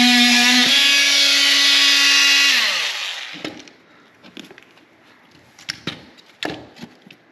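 Milwaukee cordless oscillating multi-tool running with a steady buzz that shifts slightly in pitch about a second in, then switched off and winding down with a falling pitch at around three seconds. After that come scattered light knocks and scrapes of broken drywall and wood pieces being pulled out by hand.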